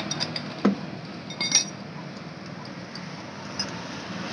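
Metal tool clinks as a spark plug socket wrench is worked loose and the spark plug is drawn out of a two-stroke motorcycle engine: a few light clicks, a single knock about two thirds of a second in, and a short burst of bright clinks about a second and a half in.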